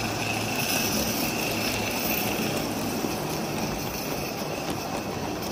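Large-scale live-steam Shay locomotives hauling a heavy train of model freight cars past, a steady running and rolling sound of the engines and wheels on the track.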